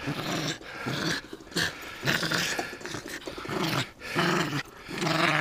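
Small Yorkshire terrier growling in rough play while mouthing at a hand: about seven short growls, one after another.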